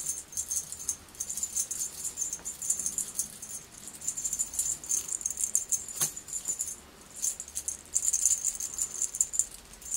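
Cat teaser wand toy jingling and rattling in quick shakes as it is waved, with short pauses between the shakes and one sharp tap about six seconds in.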